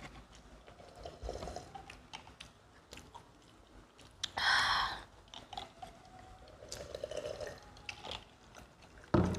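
Close-up mouth sounds of people chewing pizza: small wet clicks and smacks, with a short louder breathy burst about halfway through.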